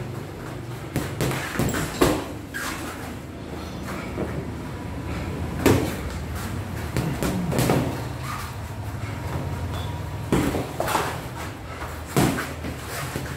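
Boxing sparring: gloves land with irregular thuds on gloves and headgear, several seconds apart, mixed with shoes scuffing on foam floor mats, over a steady low hum.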